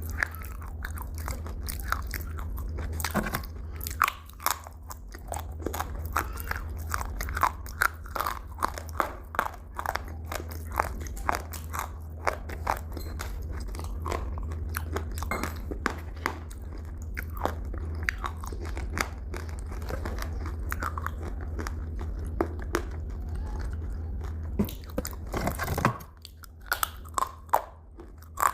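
Close-miked biting and chewing of crunchy food: many sharp, crackly crunches, several a second, over a steady low hum.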